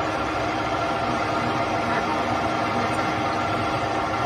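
ALCW61100 manual lathe running under power, its spindle and gear train making an even hum with a steady whine, as the lead screw drives the tool along a thread on a steel bar.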